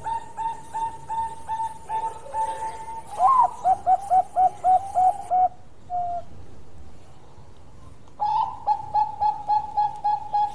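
Bangkok-bred zebra dove (perkutut) singing: quick runs of short, even cooing notes, about five a second, with a louder run in the middle. It pauses for about two and a half seconds, then starts another run near the end.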